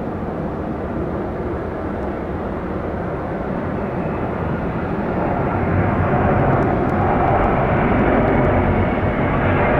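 Boeing 767-300F freighter's twin General Electric CF6 turbofan engines and airframe rumbling as it rolls out along the runway just after touchdown, growing louder about halfway through.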